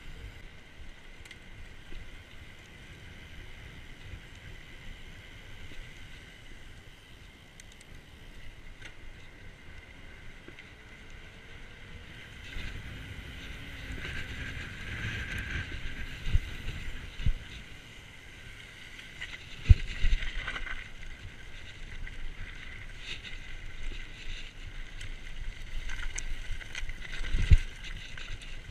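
Mountain bike rolling downhill, first on tarmac and then on gravel: tyre noise and wind on the camera microphone, with several sharp knocks from bumps in the second half.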